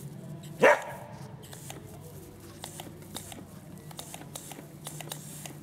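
A single short, sharp bark from a kelpie/collie-cross sheepdog about half a second in, with light scattered ticks and rustling around it.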